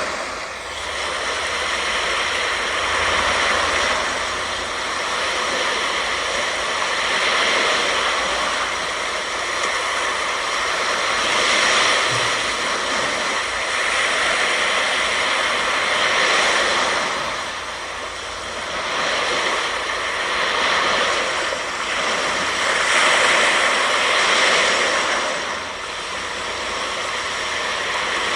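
Ocean surf breaking and washing up the beach, a steady rush that swells and eases every few seconds as each wave comes in.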